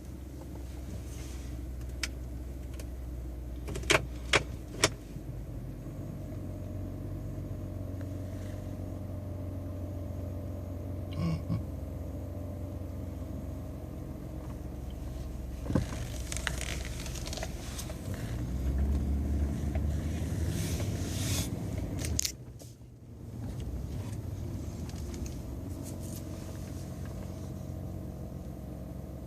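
2014 Ford F-150 EcoBoost twin-turbo V6 idling after a cold start, with a few sharp clicks, then a low groan lasting about four seconds near the middle. This is the groaning noise that comes when the truck is shifted from park to drive after a cold start.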